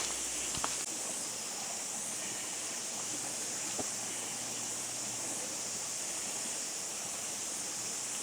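Steady rushing outdoor noise with a brighter high hiss, and a few faint clicks of footsteps.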